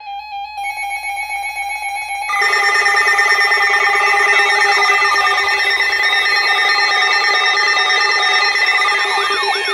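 Electronic alarm tones: several steady tones sound together, more tones join about two seconds in, and a siren-like tone sweeping up and down repeatedly comes in over them from about halfway, faster and louder near the end.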